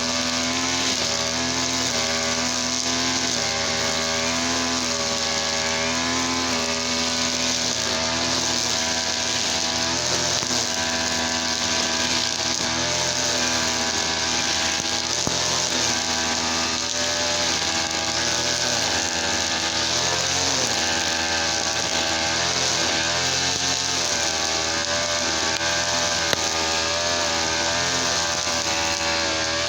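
Easyman brush cutter's TL33 two-stroke engine, run on premixed fuel, running steadily at working speed. Its pitch rises and falls a little.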